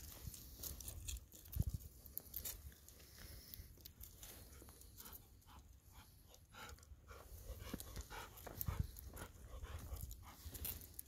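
Golden retriever panting softly, with scattered light clicks and scuffs.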